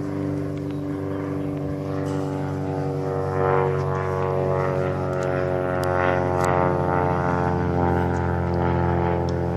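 An engine running steadily: a low drone with many evenly spaced overtones, holding the same pitch throughout, with a few faint sharp clicks around the middle.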